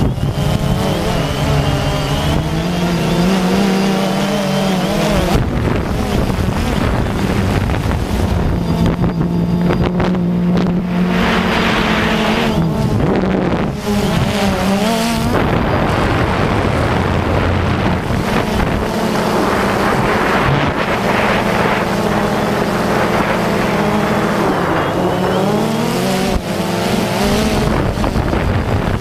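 Multirotor drone's electric motors and propellers buzzing up close, heard from the camera mounted on the drone, the pitch wavering up and down as the motors speed up and slow. Wind noise on the microphone throughout.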